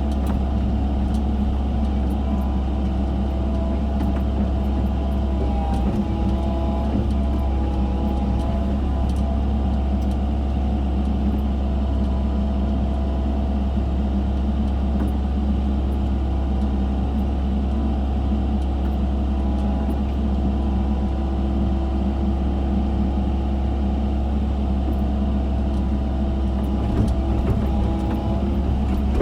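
Excavator engine running steadily at constant speed with a deep, even drone while digging.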